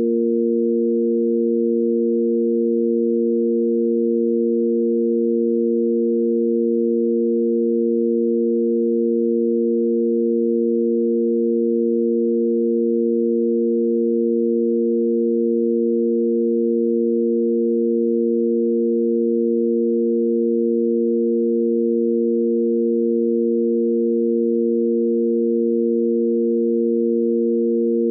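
Sine-wave tanpura drone in A#: three pure, unwavering sine tones sounding together, the root, its fifth and the octave above, held steady as a pitch reference for singing.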